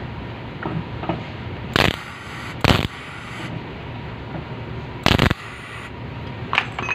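Three short, loud bursts of metalworking noise on the Suzuki Carry's sheet-metal body, each lasting a fraction of a second, about two seconds, nearly three seconds and five seconds in, with faint ticks between them.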